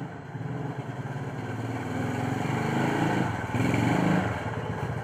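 A small engine running, growing louder about three seconds in and shifting in pitch before easing off.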